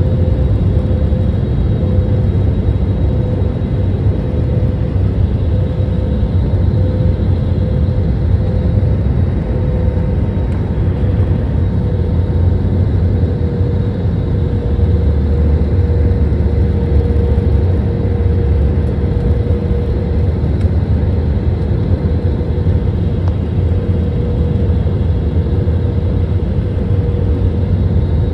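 Airliner cabin noise on the landing approach, heard beside the wing: a steady, low-heavy rumble of the turbofan engine and rushing air, with a constant hum running through it.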